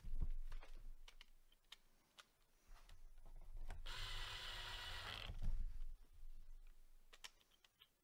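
Cordless drill driver running in one burst of about a second and a half near the middle, driving a hard-drive mounting screw. Light handling clicks and knocks come before and after it.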